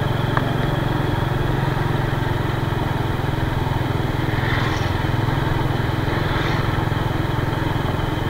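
Small motor scooter engine running steadily while riding slowly, heard from the rider's seat, with two brief hissing swells about four and a half and six and a half seconds in.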